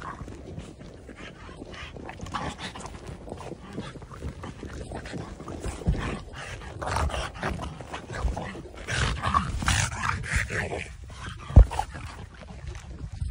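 A French bulldog playing with a big plastic ball in snow: irregular scuffling and knocking as it chases and pushes the ball, with short dog vocal noises in the second half. A single sharp thump, the loudest sound, comes about a second and a half before the end.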